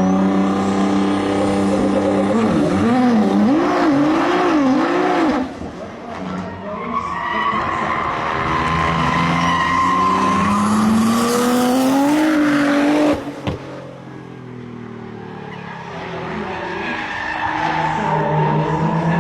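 A car being driven hard: the engine revving and the tyres squealing, with the pitch wavering and gliding up and down. About 13 seconds in there is a sharp click and the sound drops, then it builds again near the end.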